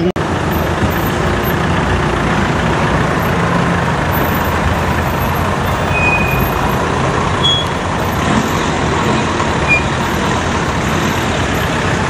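Engines of a line of 4x4 off-road vehicles running as they move slowly along a street in convoy, a steady dense rumble. A few short high-pitched squeaks come over it.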